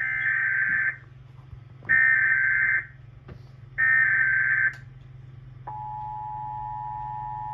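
Emergency Alert System SAME header: three one-second bursts of data tones with short gaps between them, marking the start of a Required Monthly Test. Near the end the steady two-tone EAS attention signal (853 and 960 Hz together) begins, over a low steady hum.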